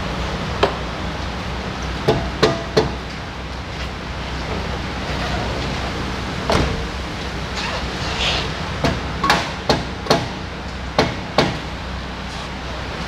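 A series of short, sharp knocks from work on a BMW E36's rear brake and handbrake assembly, coming singly and in quick runs of three or four, over a steady workshop hum.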